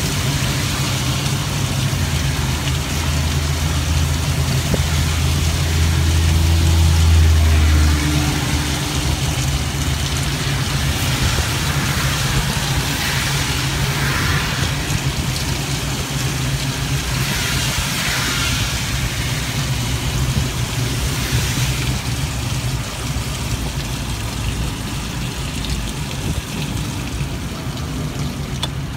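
Steady hiss of rain and wet road heard from inside the enclosed shell of an Organic Transit ELF velomobile while riding. A loud low hum swells from about two seconds in and stops at about eight seconds, and the hiss rises twice near the middle.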